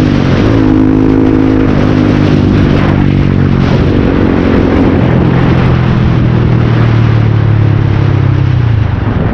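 Yamaha R15's single-cylinder engine running loud through a noisy silencer while riding. The pitch drops in the first half second, then holds fairly steady with small rises and falls, easing off near the end.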